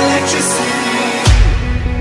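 Electronic background music; a little over a second in, a loud hit lands and a heavy deep bass comes in.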